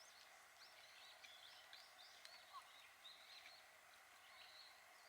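Faint bird chirps, many short quick calls in a row, over a quiet outdoor background with a few faint clicks.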